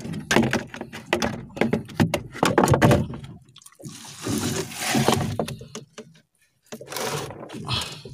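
Irregular knocks and thunks on a wooden fishing boat, with a stretch of hiss about four seconds in and a brief drop-out a little after six seconds.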